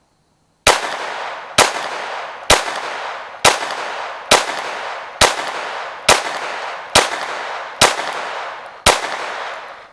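Ten shots of .22 LR (CCI AR Tactical) from a Glock pistol fitted with an Advantage Arms .22 conversion kit, fired at an even pace of about one a second. Each crack rings out and fades until the next. The whole magazine cycles without a stoppage, the slide holding open on the last round.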